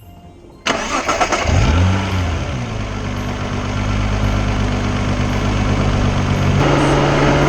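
Nissan GT-R R35's twin-turbo 3.8-litre V6 cranks and starts less than a second in, flares up in revs and settles into a steady idle. Near the end the engine note gets louder and the revs begin to rise slowly.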